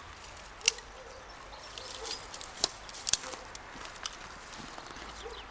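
Sticks knocking together and snapping as a campfire is being laid, a few sharp cracks, the loudest about two-thirds of a second in and again around three seconds in.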